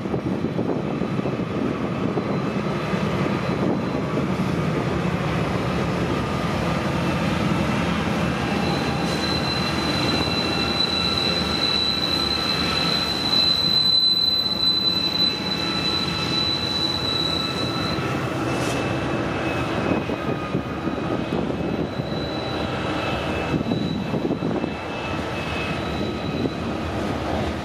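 Loaded coal hopper cars of a freight train rolling past on curved track: a steady rumble and clatter of steel wheels on rail. A high, steady wheel squeal comes in about nine seconds in, holds for about nine seconds, and returns more faintly later.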